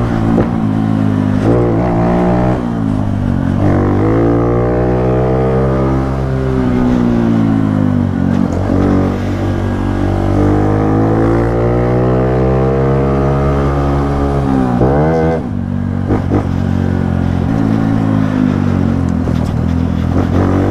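Honda Pop 110i's single-cylinder four-stroke engine, running with its air filter removed and an aftermarket exhaust, while being ridden. It revs up and down several times in long swells of pitch, with a quick sharp blip about fifteen seconds in, then settles into steadier running near the end.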